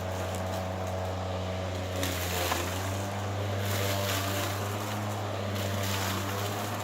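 ECHO 58V cordless lawnmower's electric motor and spinning blade running with a steady hum while cutting tall, tough weeds. The pitch dips briefly about two and a half seconds in as the blade takes load, and a rushing hiss of cut, mulched stems grows louder from about two seconds on.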